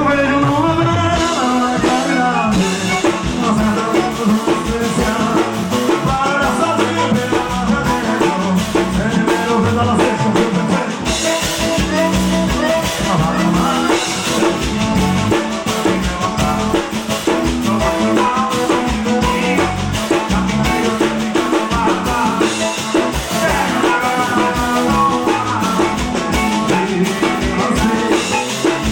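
Live forró band music: a singer's voice over a steady drum-kit beat and full band accompaniment.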